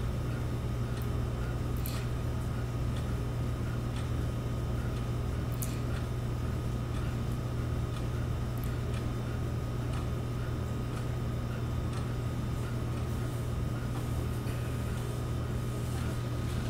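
A steady low mechanical hum with a few faint, scattered ticks.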